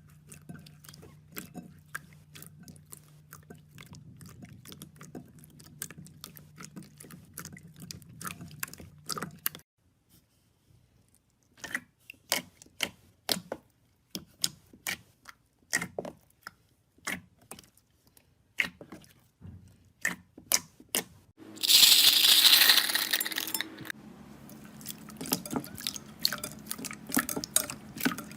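Slime being squeezed and stretched by hand, giving a run of small sticky clicks and pops. After a brief pause the pops grow louder, and about two-thirds of the way through there is a louder hissing squelch lasting about two seconds, followed by softer wet crackling.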